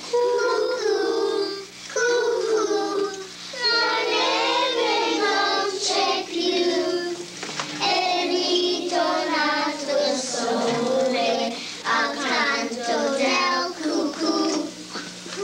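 A group of children singing a song together in long held phrases, with a steady low electrical hum underneath.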